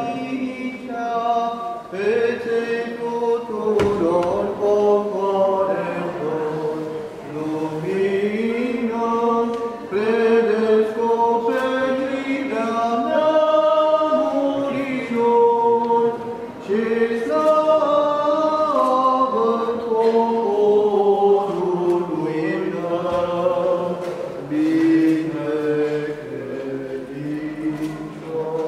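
Orthodox liturgical chant sung by voices without instruments, a slow melody moving through long held notes.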